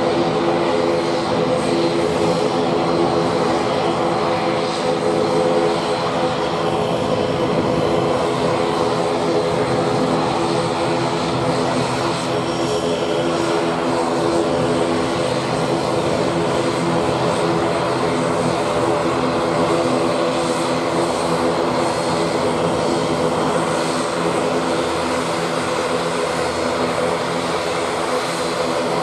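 ATR 72-600 twin-turboprop airliner's Pratt & Whitney PW127 engines and propellers running at low taxi power, a steady drone made of several steady tones that holds at one level without spooling up.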